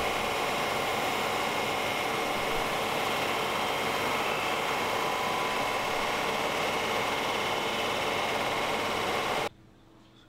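Bicycle hydraulic disc brake dragging on its rotor spun by a large lathe at about 500 rpm: a steady, loud hissing scrape of pads on the spinning disc over the lathe's running, wearing the pads down. It stops abruptly about nine and a half seconds in.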